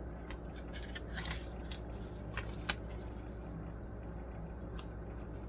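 Kitchen handling sounds as spices are added to a bowl: a few light, sharp clicks and taps over a steady low hum.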